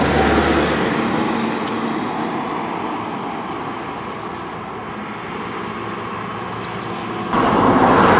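Road traffic noise: a steady rush of cars on the road, which turns suddenly louder about seven seconds in.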